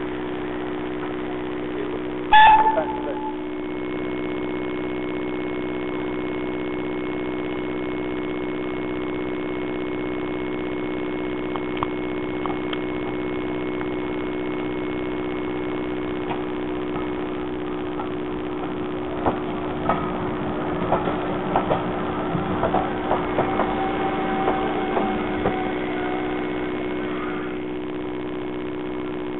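Steam locomotive whistle, a short blast falling slightly in pitch, about two seconds in, over a steady hum. Later, a brake van train clatters and knocks irregularly on the track as it comes in, with a brief high squeal.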